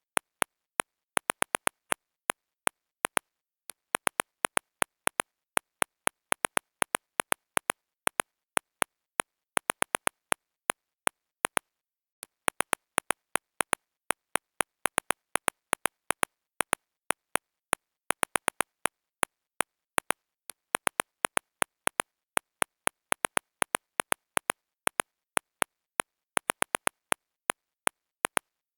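Smartphone on-screen keyboard key clicks: short, sharp taps in irregular runs, like words being typed, with brief pauses between the runs.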